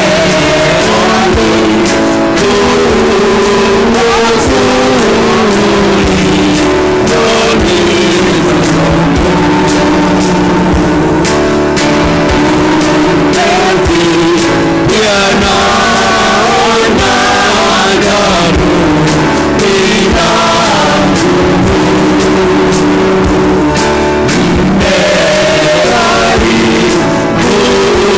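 Loud church worship music: congregational singing with an amplified band, guitar and drums, playing steadily throughout.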